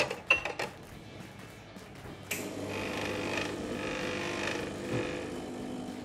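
Portafilter knocking into the group head of a Gaggia Classic Pro espresso machine, then a little over two seconds in its vibratory pump starts with a click and buzzes steadily as an espresso shot is brewed.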